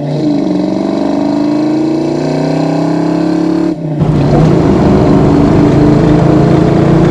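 The 5.0 V8 of a 1990 Ford Mustang LX accelerating hard with its exhaust note climbing steadily in pitch through a gear. About four seconds in it turns abruptly into a louder, rougher, steady engine and exhaust sound with road and wind rush.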